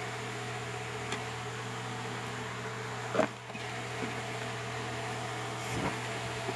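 Steady low mechanical hum, with a few light clicks and one louder knock about three seconds in.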